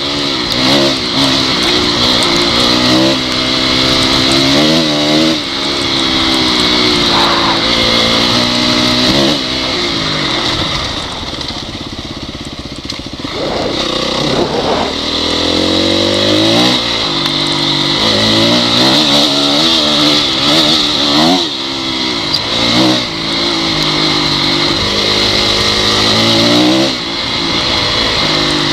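Honda CRF single-cylinder four-stroke dirt bike engine, rising and falling in pitch again and again as the rider opens and closes the throttle through the gears. It eases off for a couple of seconds about halfway through.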